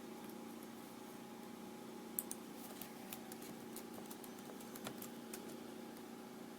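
A low steady electrical hum with a scatter of light, sharp clicks in the middle, the loudest about two seconds in.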